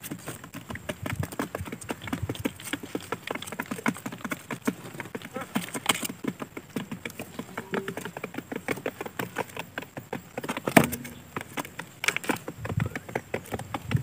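Quail pecking and stepping on a cardboard ramp: rapid, irregular light taps, several a second, with one sharper, louder knock about eleven seconds in.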